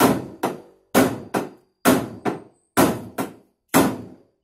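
Hammer blows on a steel truck body panel, panel-beating out dents. There are nine strikes at about two a second, alternating louder and softer, each ringing briefly, and they stop near the end.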